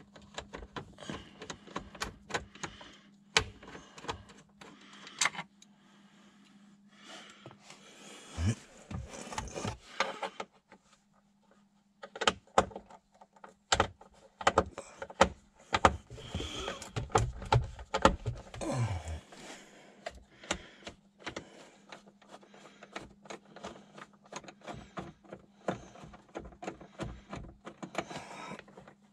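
Irregular clicks, knocks and scraping of a hand tool and hands working against the plastic trim under a car's dashboard, with busier stretches of knocking and rubbing a third and two thirds of the way through.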